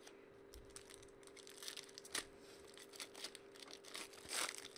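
Foil trading-card pack being handled and torn open: scattered crinkles, a sharp crackle about two seconds in, and a longer, louder tear near the end.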